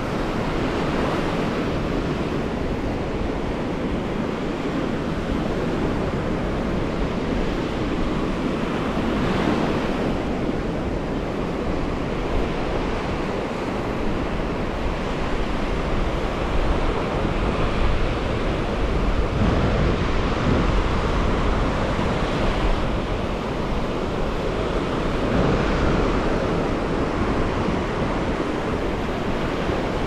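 Ocean surf breaking steadily on a sandy beach, a continuous wash of waves that swells and eases, with wind rumbling on the microphone.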